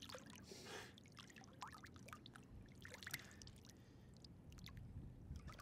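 Faint splashing and trickling of seawater as a fish fillet is rinsed by hand in the sea.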